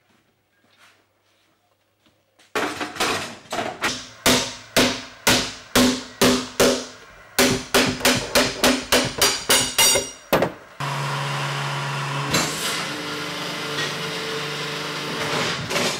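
Hammer blows on a steel hoop being driven down onto a wooden herring barrel: a long run of strikes starting a couple of seconds in and growing faster, about three a second. Near the eleventh second the hammering stops and a workshop machine starts running with a steady hum.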